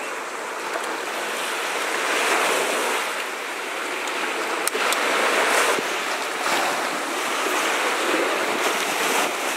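Small sea waves washing onto a sandy beach, swelling and easing every couple of seconds, with some wind on the microphone.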